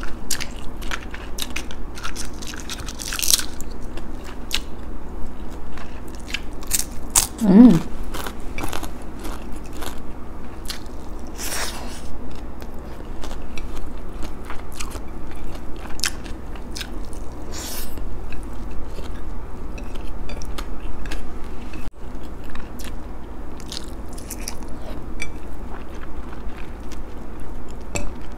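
Close-up chewing and crunching while eating fried danggit (dried rabbitfish), beef tapa and rice by hand, with many small sharp mouth clicks. One brief vocal hum comes about seven to eight seconds in.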